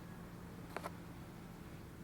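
Quiet room tone with a faint steady hum, and one soft, short click about three-quarters of a second in from handling the tissue-wrapped container.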